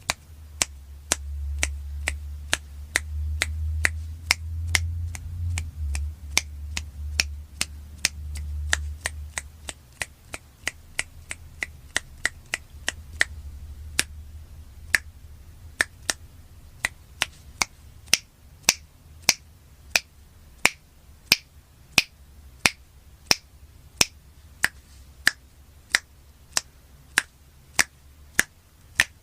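Fingers snapping over and over at a steady pace, about three snaps every two seconds, each a sharp crisp click. A low rumble sits underneath for roughly the first ten seconds.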